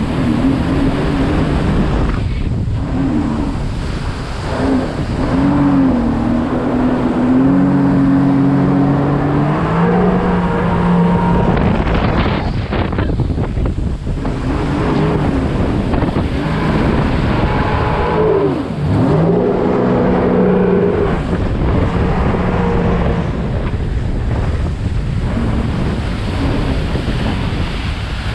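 Jet ski engine running under varying throttle, its pitch rising and falling as the rider speeds up, backs off and turns, with water spray hissing off the hull. Wind buffets the arm-mounted microphone.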